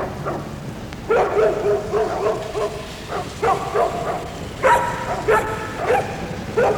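A dog whining and howling in a string of short, wavering, high calls, starting about a second in and repeating every half second or so.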